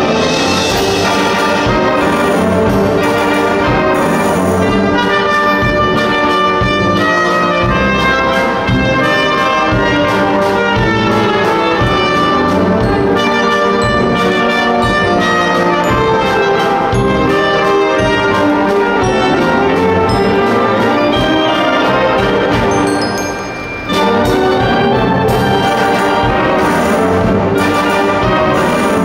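High school wind band playing a Disney medley: trumpets, trombones, saxophones and flutes over drum kit, timpani and mallet percussion. About 23 seconds in the band briefly drops back, then comes back in at full volume.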